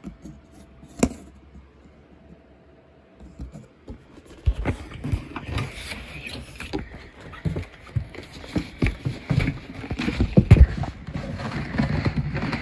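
Handling noise from unpacking a used pachislot machine: cardboard box and packing scraping and rustling, with repeated knocks and bumps against the cabinet. Quiet apart from a single click for the first few seconds, then continuous handling noise from about four seconds in.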